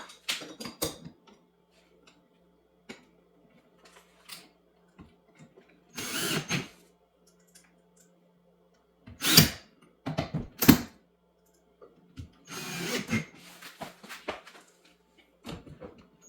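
Cordless drill-driver running in several short bursts, backing out the screws of a door hinge.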